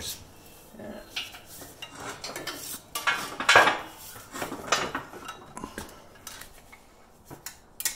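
Irregular metallic clinks and clatter as steel tools and axle parts are handled: snap-ring pliers and collars knocking against a Toyota rear axle hub and the steel press plates. The clinking is loudest a few seconds in.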